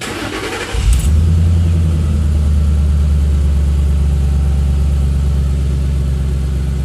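2010 Mustang GT's 4.6-litre V8 cranked briefly by the starter, catching with a sharp flare about a second in and settling into a steady idle, its first start on a newly flashed performance tune.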